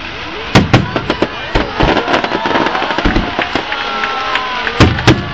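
Fireworks display: aerial shells bursting in a string of sharp bangs, the loudest a pair about half a second in and another pair near the end, with crackling in between.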